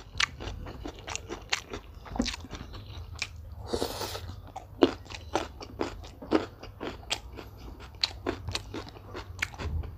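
Close-miked mouth chewing and crunching raw young jengkol with rice and sambal: a quick run of crisp crackly clicks. There is one louder, longer noise about four seconds in, as a fresh mouthful goes in.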